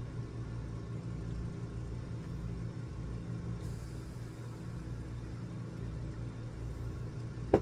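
Steady low mechanical hum, with a short click near the end.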